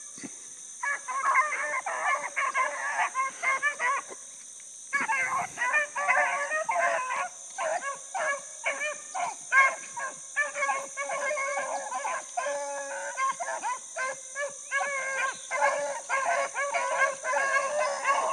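Pack of rabbit-hunting beagles baying as they run a rabbit's track, many hound voices overlapping in a steady chorus. The chorus breaks off for about a second around four seconds in, then picks up again.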